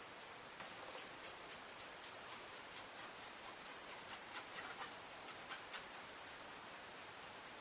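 A towel buffing dried polish haze off a plastic headlight lens: faint rubbing with quick, irregular short strokes over a steady hiss.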